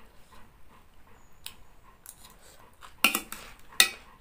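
A fork clicking and scraping lightly on a plate of noodles and papaya salad. About three seconds in come two short, sharp crackles, close together, that are the loudest sounds here.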